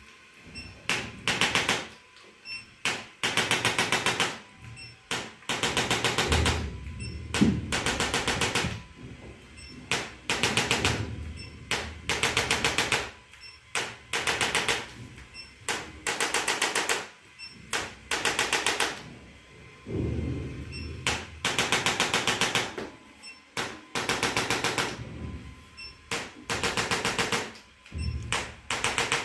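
Handheld electric percussion device running in short bursts of very rapid pulses, each about a second long and repeated roughly every two seconds.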